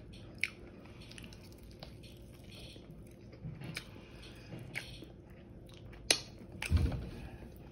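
Close-up chewing and biting of crispy air-fried chicken wings: quiet mouth sounds with a few sharp crunchy clicks, and a low thud near the end.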